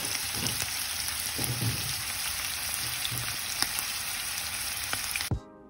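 Shrimp, asparagus and garlic sizzling in a frying pan: a steady frying hiss with a few sharp pops, which cuts off abruptly near the end.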